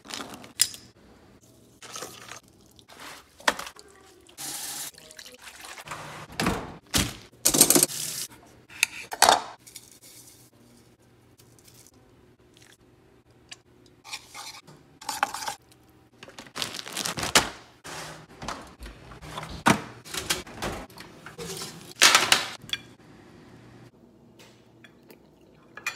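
Kitchen food-prep sounds: spice jars tipped and shaken over mixing bowls, a measuring spoon clinking against a stainless steel bowl, and oil poured, heard as a string of short, separate noises.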